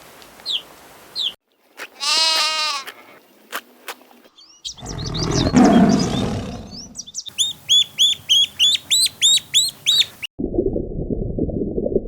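A string of short animal-call clips cut one after another: high chirping, a single bleat-like call, a rough drawn-out call, a fast run of repeated chirps, then a muffled low-pitched sound near the end.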